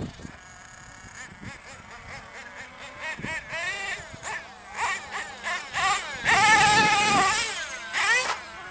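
Thunder Tiger MTA4 RC monster truck's S28 4.6 cc two-stroke nitro engine revving in bursts as the truck is driven: a high-pitched buzz that climbs and drops with the throttle. The longest and loudest run of throttle comes about six to seven and a half seconds in.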